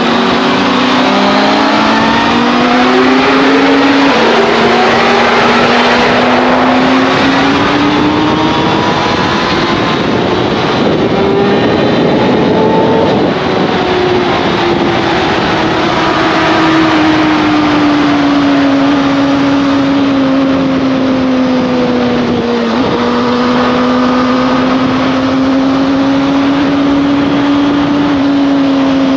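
Motorcycle engine running under way, its note climbing slowly for several seconds and then dropping suddenly about halfway through, as with a gear change. After that it eases down and holds fairly steady over a constant rushing noise.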